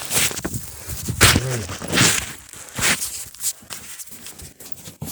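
A person scrambling through a tight cave passage: scuffs and scrapes on rock and grit, with hard, heavy breathing and a short low grunt about a second in.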